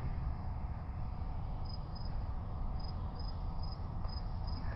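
Crickets chirping: short high chirps repeating a few times a second over a steady low background hum.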